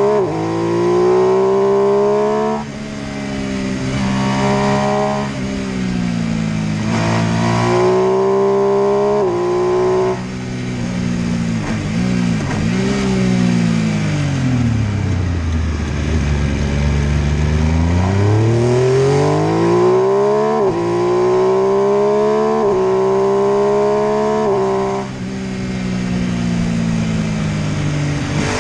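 MV Agusta F3 800's three-cylinder engine accelerating hard through several upshifts, each shift a sudden drop in pitch. Around the middle the revs fall off to a low note, then the engine climbs again through the gears and comes off the throttle near the end.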